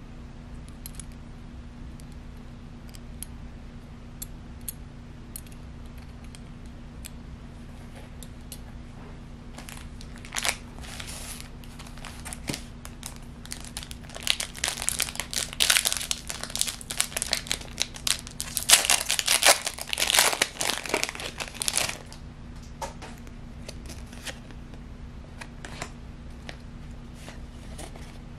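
A foil Pokémon TCG booster pack wrapper crinkling and tearing open by hand, in a run of loud rustling bursts from about a third of the way in to about three-quarters through. Before and after it there are only faint handling clicks over a steady low hum.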